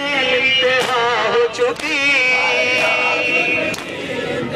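Male voices reciting a nauha, a Shia mourning lament, chanted in unison over a crowd; about halfway through one voice holds a long high note. A few sharp smacks cut through the chanting.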